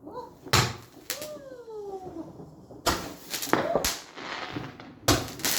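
Fireworks going off: a string of about six sharp bangs, with a short falling whistle a little over a second in.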